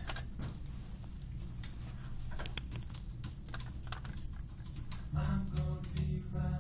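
A run of irregular clicks and taps, typical of typing on a computer keyboard; about five seconds in, a song starts playing.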